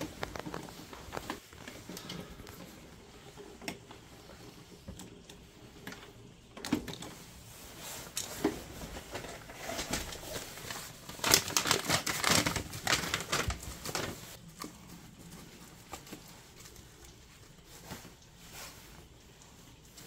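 Small clicks, taps and rustling of hands at work on a Biasi combi boiler's display circuit board as it is changed: connectors unplugged and parts handled, with a louder stretch of rustling about eleven seconds in.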